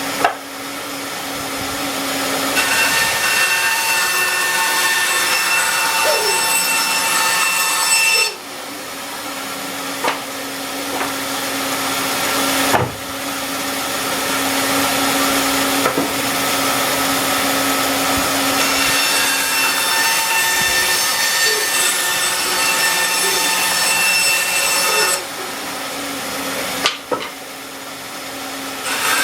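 Band saw cutting wood in several passes. The cutting noise builds during each pass, over a steady hum, and breaks off briefly about 8 and 13 seconds in and again near 25 seconds.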